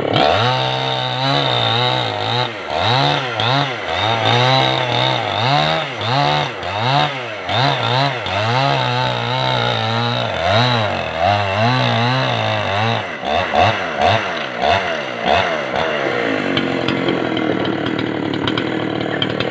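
Two-stroke petrol chainsaw cutting through a felled palm trunk, its engine revving up and down over and over as the operator works the throttle. Near the end the saw is lifted clear and settles to a steady idle.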